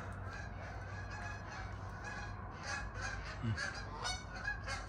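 Domestic geese honking: a run of short calls close together, starting about halfway through and getting busier near the end.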